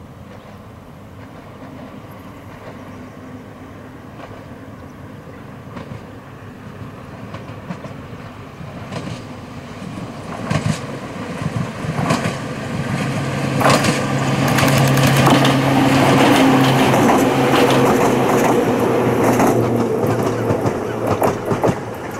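Ohmi Railway 100-series electric train (set 101F) approaching and running past, its wheels clacking over the rail joints under a steady hum. It builds from about ten seconds in, is loudest in the second half, then eases off near the end.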